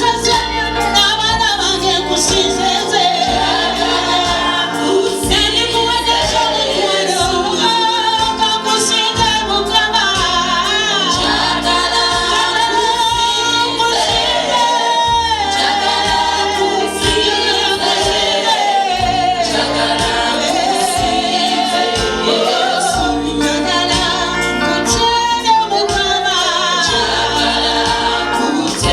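Gospel choir singing with instrumental backing and a steady bass.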